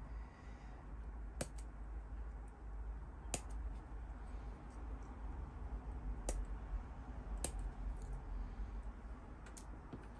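Small plastic model-kit parts being handled and fitted, giving a handful of sharp, scattered clicks a second or more apart over a low steady hum.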